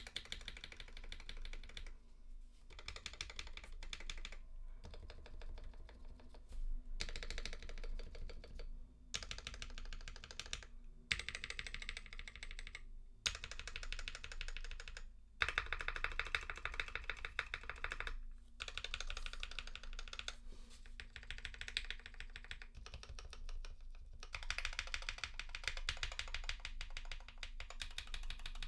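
Modifier keys being pressed repeatedly on a custom mechanical keyboard with KTT Rose linear switches, lubed with Krytox 205g0 and filmed, under ePBT keycaps. The keys are typed in quick runs separated by short pauses.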